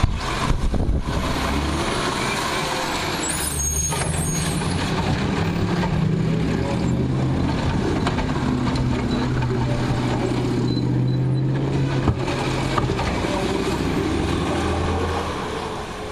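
A large engine running, its low hum shifting up and down in pitch several times, over a broad rushing noise.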